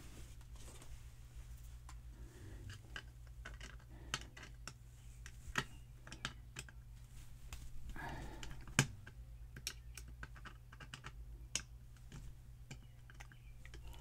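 Lock pick and tension wrench working the pins of a brass lock cylinder: faint, scattered small metallic clicks and scrapes, with a few sharper clicks.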